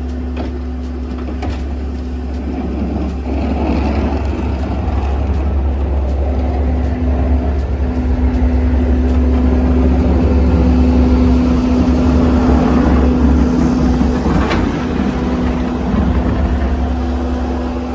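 An engine running steadily, with a deep rumble and a constant hum under a noisy wash that swells slightly in the middle.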